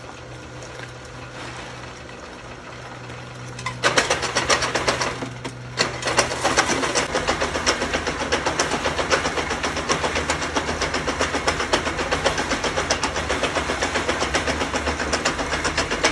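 Small electric jaw crusher running with a steady motor hum, then about four seconds in it starts breaking gold ore: a loud, dense rattle of rock cracking and grinding between the jaws that carries on to the end, briefly easing once.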